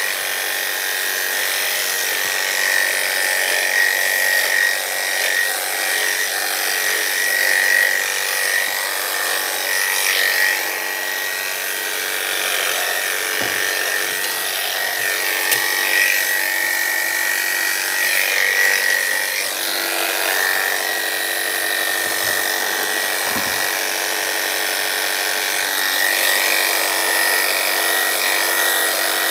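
Electric dog grooming clippers running steadily as they shave down a standard poodle's coat, a constant high-pitched whine over a buzzing hiss.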